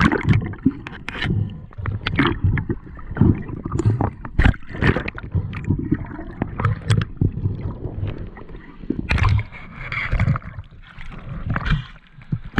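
Sea water sloshing and gurgling around an action camera as it goes under and breaks the surface, with bubbles and many irregular knocks and clicks against the camera housing.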